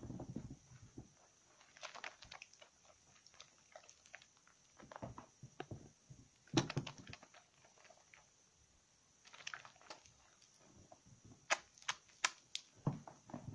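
Wet squelching and squishing of slightly soaked soap bars and flower-shaped sponges squeezed by hand in thick lather, coming in irregular bursts with small sharp pops and clicks. The loudest squeeze comes about six and a half seconds in, with a quick run of sharp clicks near the end.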